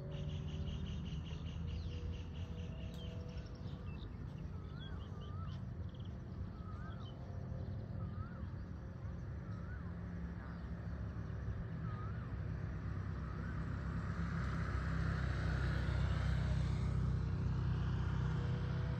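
Steady low vehicle rumble with a bird whistling a short rising-and-falling note about once a second for several seconds. Near the end the noise swells and fades again, as of a vehicle passing.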